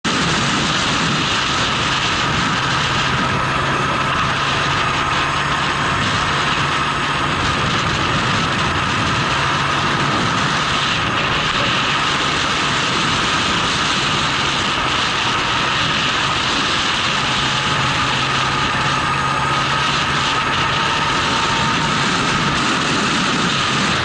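Honda CB750 motorcycle's inline-four engine running steadily while riding at road speed, under a constant rush of wind noise.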